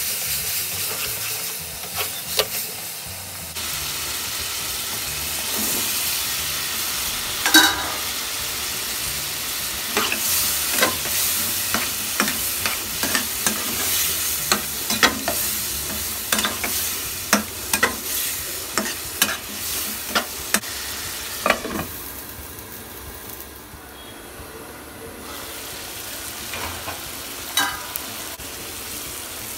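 Spice paste and potato wedges sizzling in oil in a metal pan while a metal spatula stirs them, scraping and clinking against the pan. The sizzle is steady and the clinks come often, one of them loud about a quarter of the way through. The sizzle eases for a few seconds about three-quarters of the way through.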